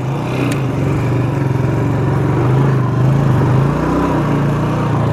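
Motorcycle engine running under load as the bike is pushed through mud, its note wavering up and down with the throttle.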